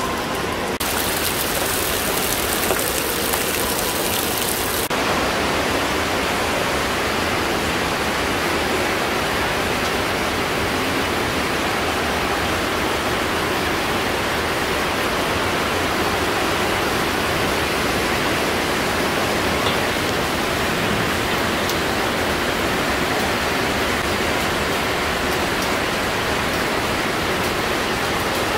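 Steady rushing of water from an underground stream inside a limestone cave, with a brighter hiss added for a few seconds near the start.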